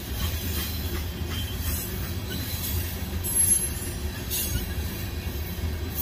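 Freight train of covered hopper cars rolling past: a steady low rumble of wheels on rail, with brief high wheel screeches about three and four seconds in.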